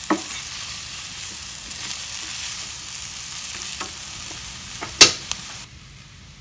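Food frying and sizzling in a pan, with a few sharp knocks; the loudest knock comes about five seconds in. The sizzling cuts off abruptly near the end.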